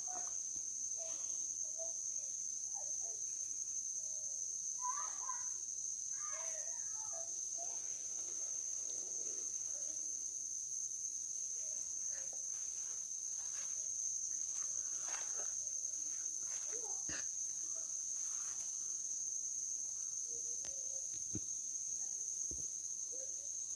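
Steady high-pitched insect drone of chirring insects, with faint distant voices about five seconds in and a few soft clicks later.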